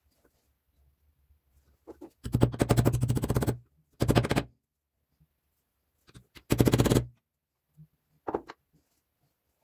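Stiff brush scrubbed rapidly across the teeth of a small steel gear from the breast drill, making a fast rattling rasp. It comes in three bursts: a long one about two seconds in, a short one after it, and another short one near seven seconds, with a couple of light knocks of the part between them.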